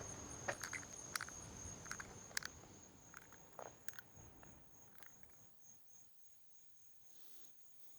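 Cricket chirring in a steady, high, slightly pulsing trill, with a few faint clicks in the first few seconds.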